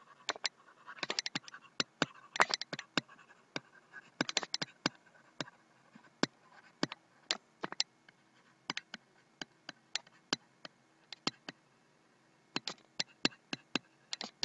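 Stylus tapping and scratching on a pen tablet during handwriting: many sharp, irregular clicks, some in quick clusters, with a short quiet gap near the end.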